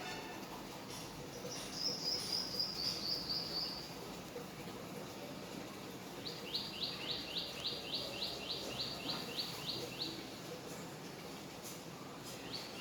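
A bird calling twice. First a quick run of about ten high notes, then a longer series of about fourteen repeated notes, each sliding downward, at roughly four a second, with another call starting near the end.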